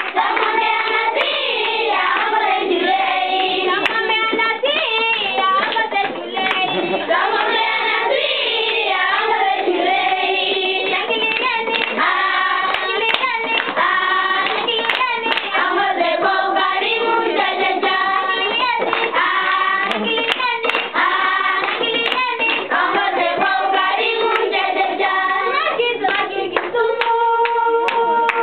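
A group of children singing together, clapping their hands along with the song.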